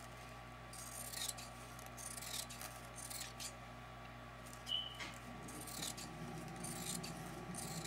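Scissors cutting through folded layers of fabric in a series of short, faint snips beginning about a second in. There is a brief high squeak just before five seconds.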